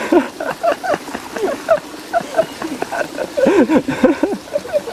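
Background chatter: many short, overlapping voices rising and falling in pitch, none close enough to make out.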